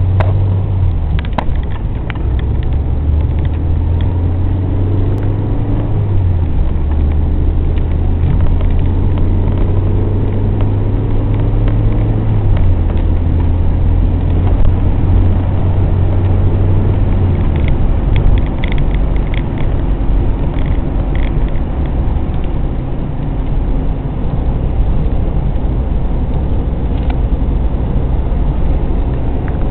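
Nissan 240SX's 2.4-litre KA24DE four-cylinder engine idling, its engine note stepping up or down to a new steady speed a few times instead of holding one idle. A few light clicks come about two-thirds of the way through.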